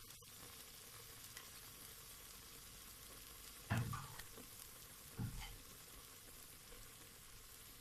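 Chicken pieces frying faintly in oil in a pot: a steady low sizzle, with two brief louder sounds about four and five seconds in.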